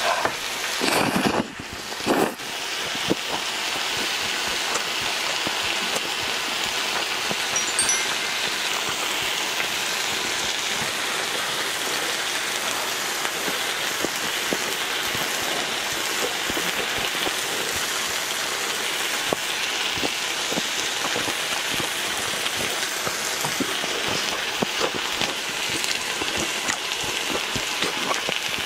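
Pork neck steaks and vegetables sizzling on a hot grill pan, a steady frying hiss with fine crackles. About one to two seconds in, a few louder bursts of noodles being slurped.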